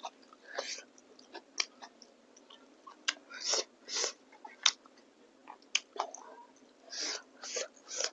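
A person chewing food close to the microphone: irregular wet mouth clicks and smacks.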